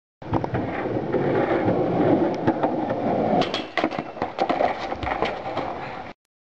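Skateboard wheels rolling on concrete, with sharp clacks of the board hitting the ground, coming thick and fast from about halfway. The sound cuts off abruptly near the end.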